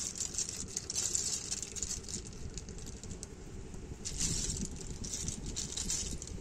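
A heap of wet snail shells clicking and rattling as a hand rakes and sifts through them: a quick, irregular clatter of small clicks, busiest again from about four seconds in.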